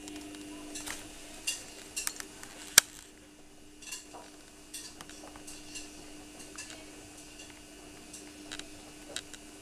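Handheld camera body creaking as it is gripped at arm's length: a scatter of sharp clicks and ticks, the loudest about three seconds in. A steady low hum runs underneath.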